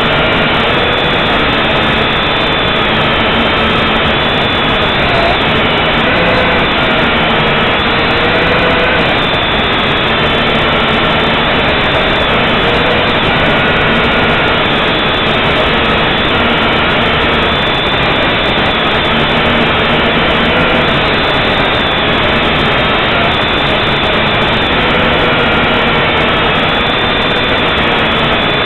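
JJRC H8 quadcopter's motors and propellers running in flight, a loud steady buzz close to the onboard microphone. Its whine wavers up and down in pitch as the motor speeds change.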